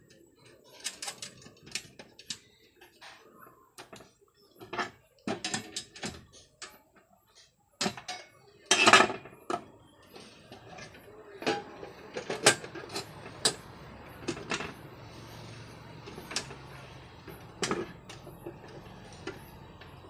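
Sheet-metal lid being worked onto a metal enclosure box: a run of irregular clanks, clicks and scrapes of metal on metal, loudest about nine seconds in.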